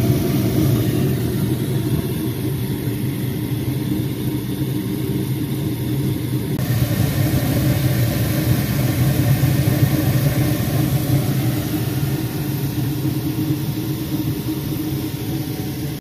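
Gas furnace running steadily in its start-up sequence just after the gas valve opens: the draft inducer motor is running and the burners are firing.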